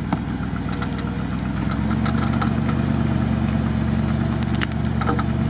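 Mercedes G-Class off-roader's engine running steadily at low revs while stuck in peat bog, getting a little louder about two seconds in. A single sharp click about four and a half seconds in.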